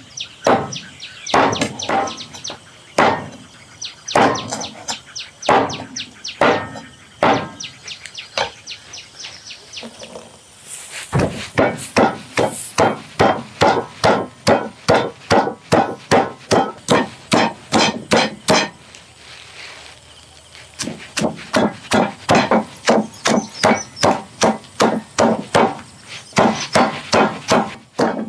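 A knife chopping on a wooden cutting board in quick repeated strokes, about two to three a second, with short pauses about ten seconds in and again near twenty seconds.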